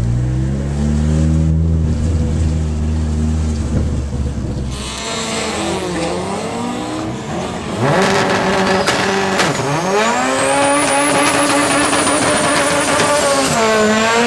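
Honda Accord wagon drag car's engine running at low revs, heard from inside the cabin. It then blips up and down a few times and is held at high revs through a front-wheel burnout, with a thin high tyre squeal over the engine. The revs drop near the end.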